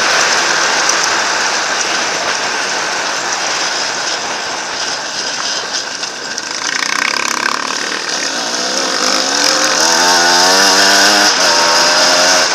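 Enduro dirt bike's engine running under way on a gravel track, with heavy wind rush on the camera. In the last few seconds the engine revs up, its pitch climbing steadily, then drops back.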